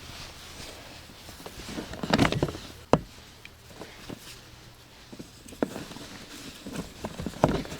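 Scattered knocks and clunks of someone moving about and handling gear in a small boat, with a sharp knock about three seconds in.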